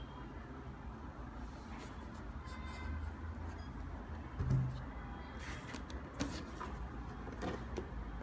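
Steady low background rumble with scattered soft clicks and knocks from handling the shoe and box. The loudest is a dull thump about four and a half seconds in.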